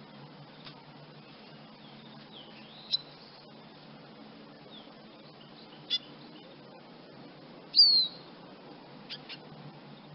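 Eurasian siskin giving a few sparse, high calls, short chirps a few seconds apart. The loudest is a longer falling note near the end, followed by two quick notes.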